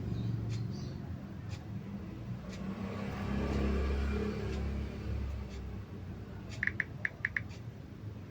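Low rumble of a vehicle going past, swelling and fading about halfway through, with a quick run of five or six short clicks near the end.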